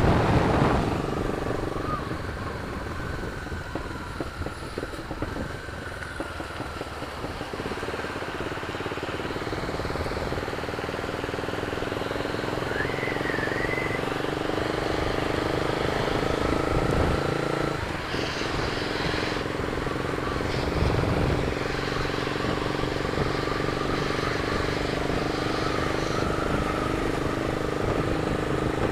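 Honda CB300's single-cylinder engine running steadily while the motorcycle is ridden, with wind rush over the helmet-mounted microphone.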